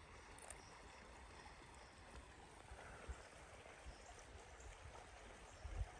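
Near silence: faint, steady trickle of a small, shallow, clear creek.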